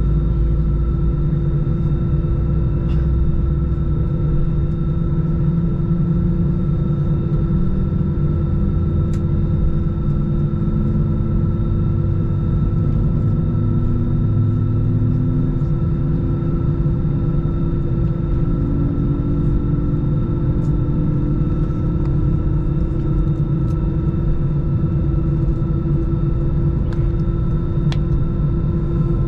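Airbus A320 taxiing, heard inside the cabin: the jet engines running at taxi idle as a steady low rumble with a steady whine over it. One lower tone slowly climbs in pitch throughout.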